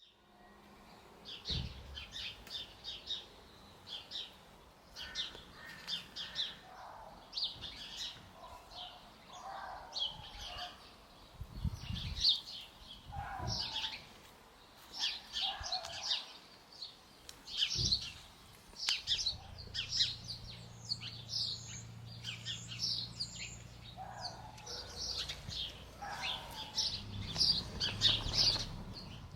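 Birds chirping and singing, many short high twittering notes repeated throughout, with a few dull low thumps underneath.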